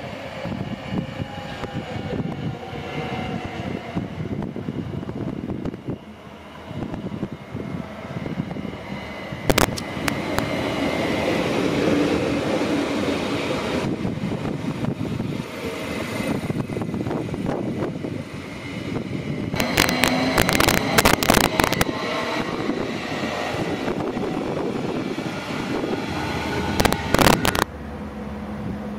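Electric multiple unit, a class 3429 Stadler FLIRT, running past on the station tracks: a steady rumble of wheels on rail with a faint whine from its traction motors, broken by sharp clattering from the wheels on the track about ten seconds in, again around twenty seconds and once more near the end.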